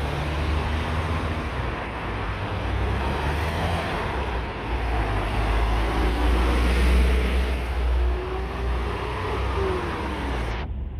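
Street traffic: cars and a light box truck driving past, a continuous engine and tyre noise over a steady low rumble.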